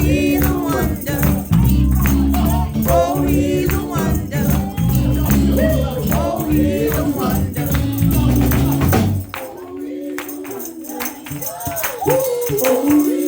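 Live gospel music: voices singing over a band with a tambourine and a heavy bass line. About nine seconds in the bass drops out, leaving the singing and tambourine.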